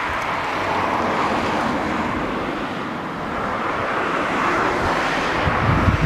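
Steady rushing outdoor noise that swells and eases, with wind buffeting the microphone near the end.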